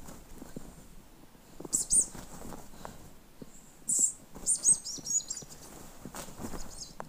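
Small bird chirping in quick high calls, in two bursts about two seconds in and again from about four seconds, over soft rustling and light thuds of a hare's paws on a crumpled duvet.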